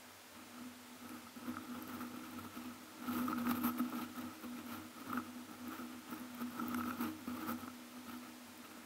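Precipitation drops pattering and ticking on the camera, denser from about three seconds in, over a steady faint hum.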